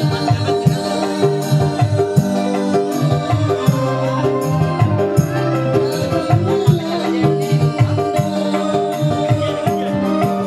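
Live band music: a man singing through a microphone and PA over an electronic keyboard, with a steady hand-drum and shaker rhythm.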